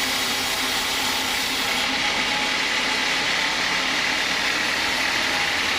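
Engine of a homemade sawmill running steadily.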